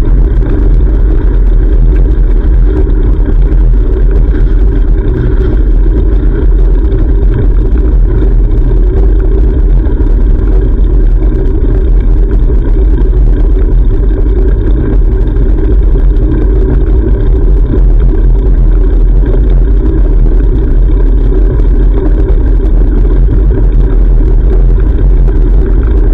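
Steady low rumble on a bicycle-mounted GoPro while riding: wind buffeting the microphone together with road noise, loud and unchanging throughout.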